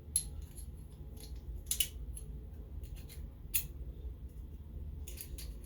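A few sharp small clicks and light scrapes of a 3D-printed plastic spacer and lens being handled and fitted into a jeweler's loupe housing, over a low steady hum. The clicks are spread out, with a quick cluster near the end.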